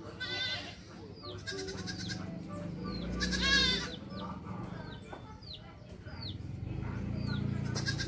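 Goat kids bleating: two short high bleats in the first two seconds, then a louder, longer quavering bleat about three and a half seconds in.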